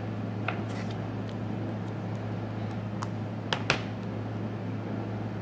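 A few light clicks and taps of small tools and phone parts being handled during reassembly of an iPhone 4S, the sharpest two close together a little past halfway, over a steady low hum.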